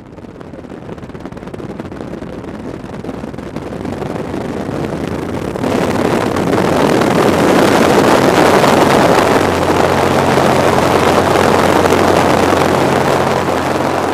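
Maule M7-260C's six-cylinder Lycoming engine and propeller at full takeoff power during the takeoff roll. Wind rushing over the microphone grows louder as the plane gathers speed, rising sharply about six seconds in.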